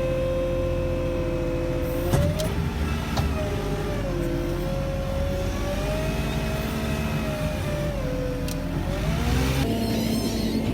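Crop sprayer's engine running steadily while spraying, its note and whine falling and rising a few times as the revs change. Near the end the steady note breaks off.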